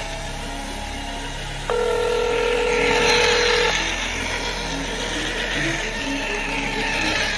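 Simple electronic beeping tune of short, evenly spaced notes, with one long steady tone held for about two seconds starting near two seconds in.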